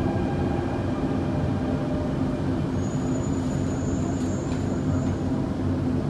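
Alstom Dubai Metro train running between stations, heard from inside the car: a steady rumble with a constant motor hum. A thin, high whine comes in for about two seconds midway.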